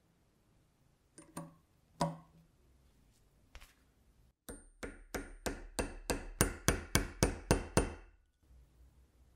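A small hammer tapping metal in a quick run of about fourteen sharp taps, about four a second, getting louder as it goes, each with a short ring. Two lighter knocks come a few seconds earlier.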